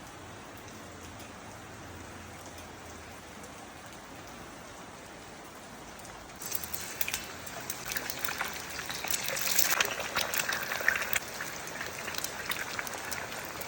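Steady rain falling. About six and a half seconds in, a louder crackling, spattering sound with many sharp clicks sets in over the rain.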